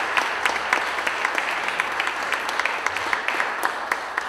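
Audience applauding steadily, many overlapping hand claps.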